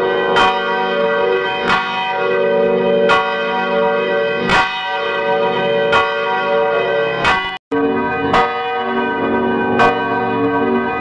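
Church bells ringing, a new stroke about every second and a half over the overlapping hum of the earlier strokes. About seven and a half seconds in the sound cuts out for an instant, and lower bell tones come in after it.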